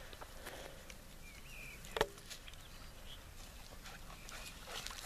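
A black dog and a white standard poodle sniffing and rustling through grass and a pile of dry twigs, with scattered small snaps and one sharp crack about two seconds in.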